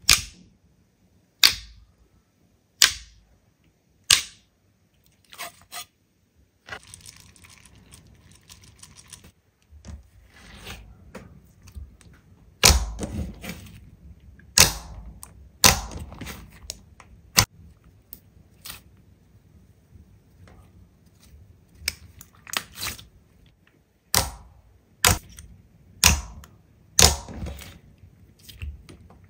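Slime being pressed and squeezed by hand, making loud sharp pops, about one every second and a half at first, then a stretch of fine crackling, then quicker, irregular pops.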